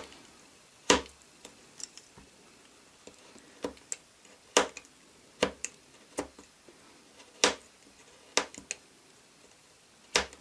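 Craft knife cutting a black plastic Lego antenna to taper its end: short, sharp clicks at irregular intervals, about one a second, a few much louder than the rest.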